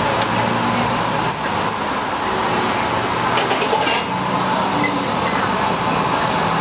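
Steady city street traffic noise, with a faint high whine a second or two in and a few short clinks about three and a half and five seconds in.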